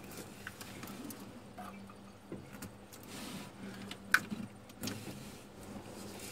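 Light clicks and knocks of an alternator drive belt being worked by hand onto the engine's pulleys, with one sharp click about four seconds in. A faint steady hum sits underneath.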